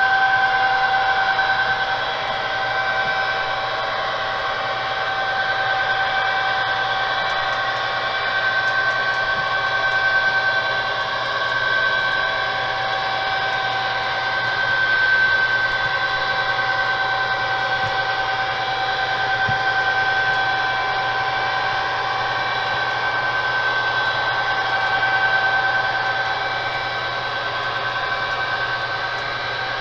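HO-scale model locomotives running on a DCC layout: a steady high electric motor whine over an even rushing noise, swelling and fading slightly.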